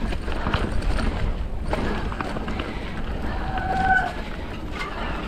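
Mountain bike riding over a dirt trail: tyre noise and the bike rattling and clicking over bumps, with a low rumble of wind on the microphone. About three and a half seconds in, a short squeal on one steady tone sounds for under a second.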